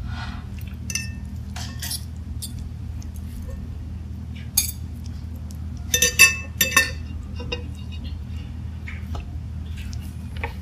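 Metal fork clinking and scraping against a ceramic plate as spicy instant noodles are lifted and twirled, in scattered sharp taps with a loud cluster of clinks about six seconds in. A steady low hum runs underneath.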